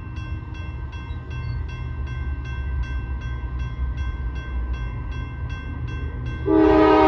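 Railroad grade-crossing bell ringing in an even, rapid rhythm, about two and a half strokes a second, over a low rumble. About six and a half seconds in, a freight locomotive's multi-chime air horn starts blowing loudly, holding a steady chord.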